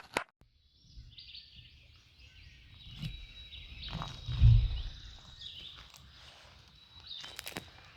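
Spring morning songbird chorus, many birds chirping and singing over one another. A few sharp crackles sound through it, and a low thump about halfway through is the loudest sound.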